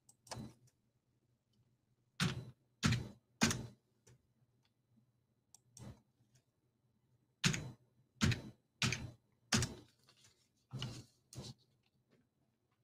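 Computer keyboard keys pressed in short groups, about a dozen separate sharp keystrokes with pauses between them, as ticker symbols are typed in.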